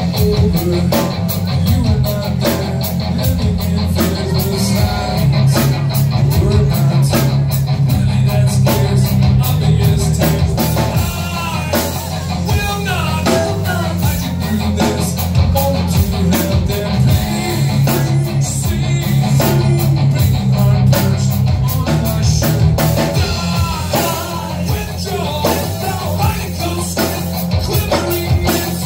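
A live rock band playing: electric guitar, bass guitar and drums with a steady beat, and a man singing.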